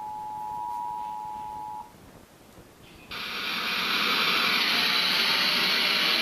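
Emergency Alert System attention signal, a steady two-tone beep, cutting off about two seconds in. After a short gap, a loud steady hiss of radio static starts about three seconds in and is the loudest sound.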